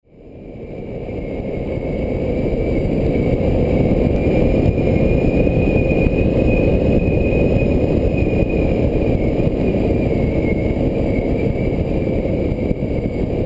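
Paramotor engine and propeller running steadily in flight, mixed with heavy wind rush on the microphone. The sound fades in over the first couple of seconds.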